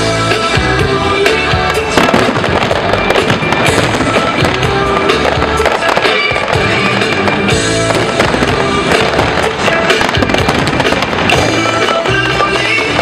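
Fireworks display: aerial shells bursting in rapid bangs with crackling, mixed with loud music.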